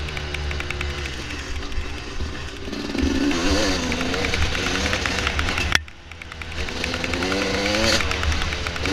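Dirt bike engine running on a trail ride, its pitch rising and falling with the throttle. A sharp click comes just before 6 seconds in; the engine drops off briefly, then builds back up.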